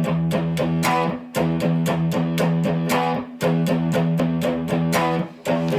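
Guitar strummed in a steady rhythm, with two short breaks, about a second in and near the end.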